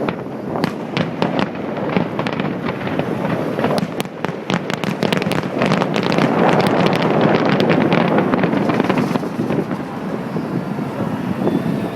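Fireworks display: rapid volleys of bangs and crackling bursts, densest and loudest around the middle, thinning out near the end.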